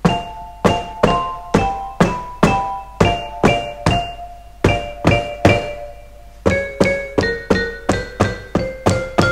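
Xylophone sound from MainStage software, played from a Pearl Malletstation EM1 electronic mallet controller with four mallets: two-note chords struck in a steady rhythm, about two a second, each note dying away. The chords move higher about six and a half seconds in. The notes sounding together show the controller registering simultaneous hits.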